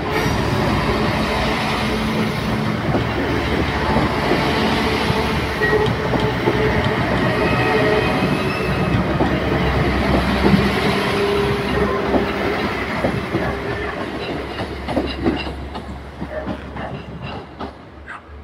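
Translink diesel multiple unit passing close by over a level crossing: a steady rumble of engine and wheels that fades over the last few seconds as the end of the train pulls away, with a run of sharp wheel clicks over the rail joints as the last carriages cross.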